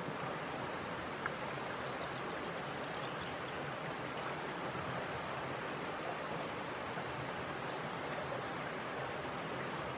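River water flowing, a steady even rush, with one faint click about a second in.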